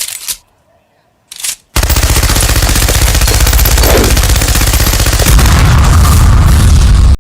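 Two short noisy bursts, then a loud, fast, continuous rattling sound effect with a heavy low rumble that stops abruptly.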